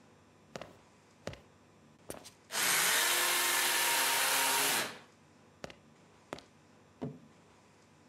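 A small electric motor switches on about two and a half seconds in, runs steadily for a little over two seconds and then cuts off. Sharp clicks come before and after it.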